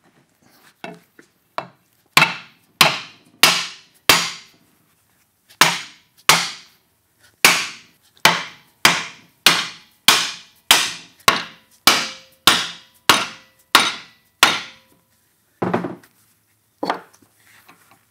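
A red-headed mallet hammering sheet metal clamped in a bench vise, bending it over a round form. A few light taps lead into about twenty sharp blows at up to two a second, with a short pause after the first four. Some blows leave a brief metallic ring.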